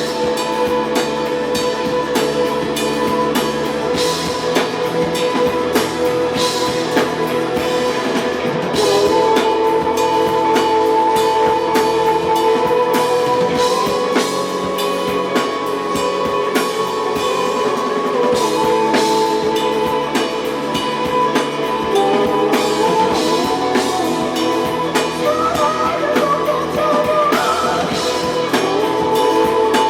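Live rock band playing an instrumental passage of the song: guitars holding sustained chords over a drum kit with steady cymbal and drum hits. A wavering higher melody line comes in briefly near the end.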